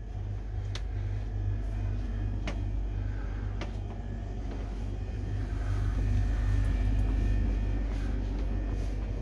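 Motor yacht's twin diesel engines running with a low, steady rumble that grows a little louder about six seconds in, with a few faint clicks.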